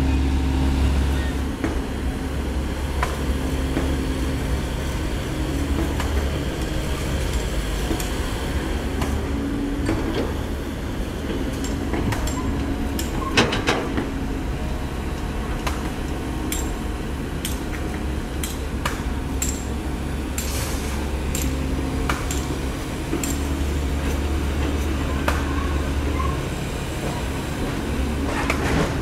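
Komatsu PC130 hydraulic excavator's diesel engine running steadily, labouring harder under load at times as it digs and swings. Scattered clanks and knocks come from the steel bucket striking soil and stones, the sharpest about halfway through.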